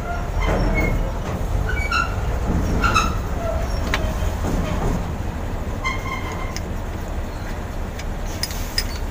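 Metal clinks and light scraping as the bolt and washer used to press a cylinder liner into an engine block are unscrewed, with a few short ringing clinks over a steady low hum.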